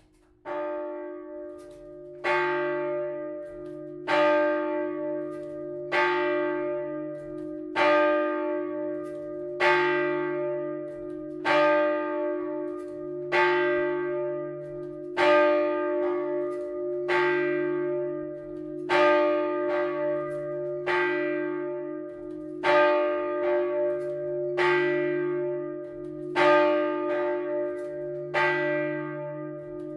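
A swinging church bell starts ringing. The clapper strikes about half a second in, softer at first, then at a steady pace of about one stroke every two seconds. Each stroke rings on into the next over a steady low hum.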